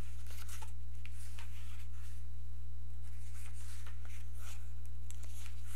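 Paper rustling in short bursts with a few faint clicks as a book's pages are handled and turned, over a steady low hum.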